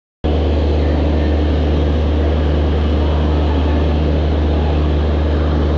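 Steady, loud, low drone of a train's machinery running at a standstill: an unchanging engine-like hum with a deep rumble underneath, starting abruptly just after an edit.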